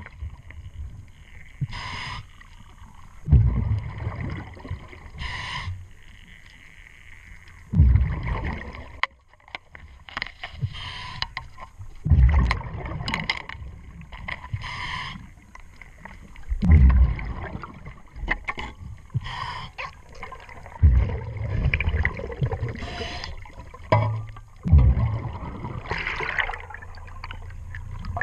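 Diver breathing underwater through a regulator: a short hiss on each inhale, then a rumbling burst of exhaled bubbles, about every four seconds. Scattered light clicks in between.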